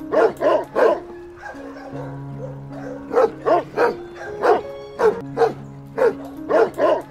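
Dog barking: about a dozen short, high barks in quick runs of two or three, over background music with held notes.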